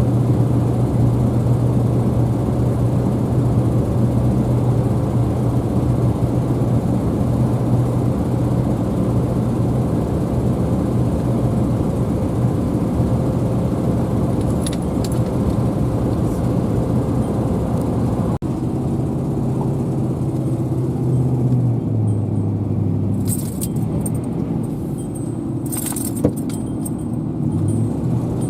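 A vehicle's engine running steadily with a low hum. Its tone drops lower about two-thirds of the way through, and a few light clicks come near the end.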